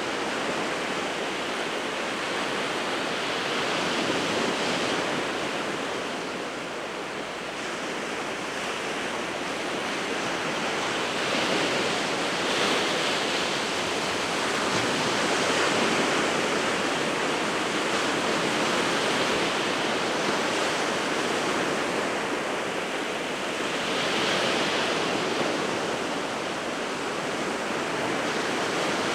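Sea waves breaking on the winter Sea of Japan coast: a continuous wash of surf that swells and eases every few seconds as each wave comes in.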